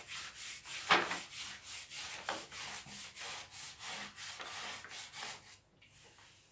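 A hand rubbing the protective film flat over a diamond painting canvas, quick scraping swipes two or three a second, the strongest about a second in, dying away near the end: smoothing the sheet to chase out trapped air.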